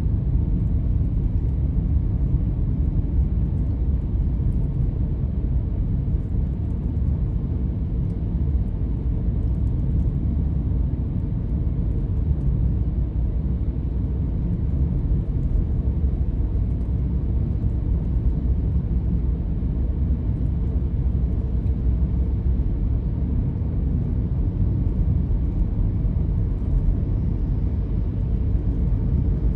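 Steady low rumble of a car driving on the road: tyre and engine noise, even throughout with nothing standing out.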